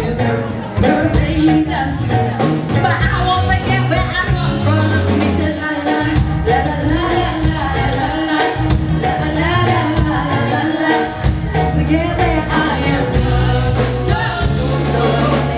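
Live rock/pop band playing: female vocals over electric guitar, bass guitar and a steady drum beat, with keyboard.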